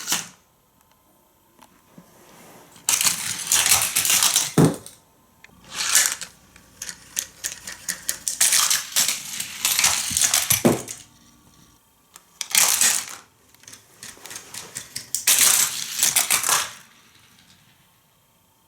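Die-cast Hot Wheels toy cars rolling and clattering along plastic stunt track in repeated runs of a second or two, with quiet gaps between them. A couple of the runs end in a dull thud.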